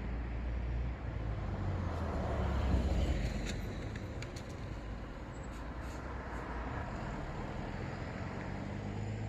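Road traffic noise with a steady low rumble of car engines and tyres; one vehicle passes, swelling up and fading away about three seconds in.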